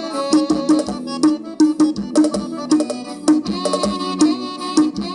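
Instrumental stretch of a song with an accordion-like melody over a steady drum beat, played loud through a small Master Audio portable speaker turned up to its second-highest volume.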